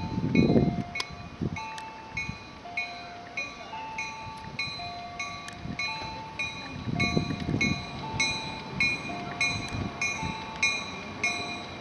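Railroad grade-crossing warning bell ringing steadily, with its strokes alternating between two pitches. Low rumbles from the train come near the start and again about seven seconds in.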